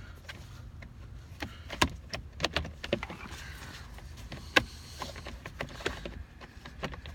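Plastic steering column cover pieces being handled and fitted together: scattered sharp clicks and knocks of plastic on plastic, the loudest about two seconds in and again about four and a half seconds in.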